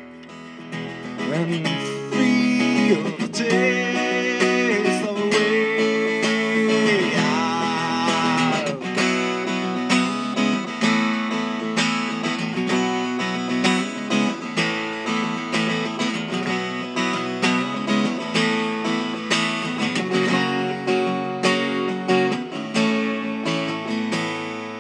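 Acoustic guitar played solo in a rhythmic picked and strummed pattern, with sliding notes over held chords in the first several seconds.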